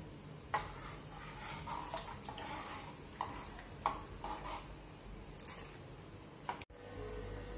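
Steel ladle stirring thick, boiling curry in an aluminium pot, with a few light clinks of the ladle against the pot.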